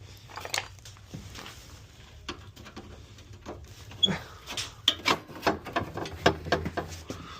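Irregular light clicks, taps and knocks of hands working on a small bandsaw, undoing the blade setup, over a faint low hum.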